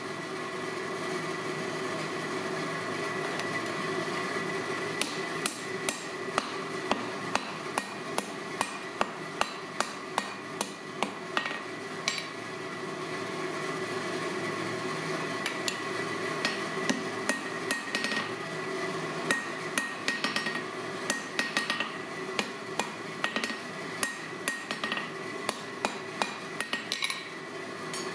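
Hand hammer striking red-hot steel held in tongs on an anvil, in irregular runs of blows several a second with short pauses between them, over a steady background hum.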